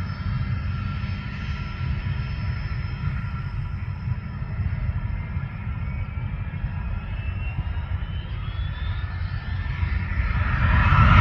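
Bombardier Challenger 3500 business jet's twin Honeywell HTF7350 turbofans running, a steady low rumble with high whining tones and a faint rising whine partway through. Near the end the jet noise grows much louder.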